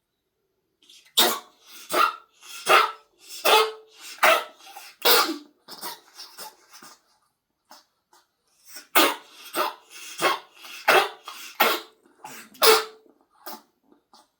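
A pet coughing in two bouts of repeated hacking coughs, about seven coughs in each bout, each a little under a second apart. There is a pause of a few seconds between the bouts.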